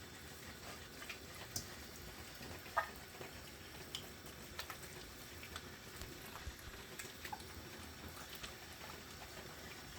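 Faint, scattered small wet clicks and squelches of hands rubbing a wet jerk seasoning mix into a raw whole chicken, one slightly louder about three seconds in.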